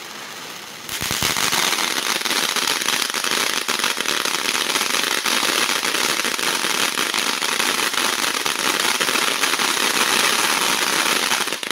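Ground fountain firework hissing, then about a second in breaking into a loud, dense, continuous crackle of sparks that holds steady. It cuts off suddenly near the end.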